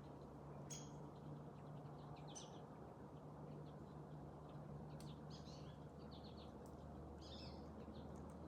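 Faint outdoor birdsong: scattered short chirps and trills, several coming close together past the middle, over a low steady hum.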